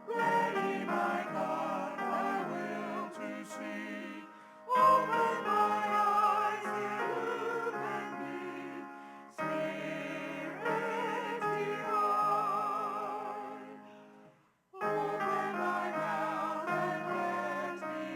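Church music: singing with a strong vibrato over instrumental accompaniment. It comes in phrases that break and restart, with a brief near-silent pause shortly before the last phrase.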